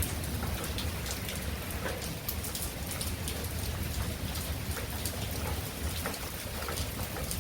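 Heavy rain falling steadily, with many individual drops striking close by and a steady low rumble underneath.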